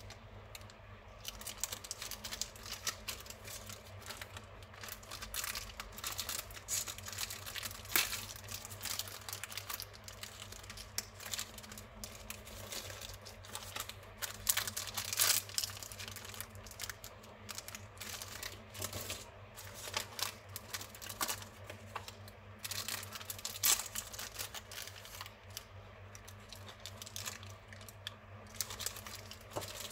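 Paper wrappers of Lemona vitamin C powder sticks being peeled, torn open and crumpled by hand: a continuous run of irregular crinkles and crackles, over a faint steady low hum.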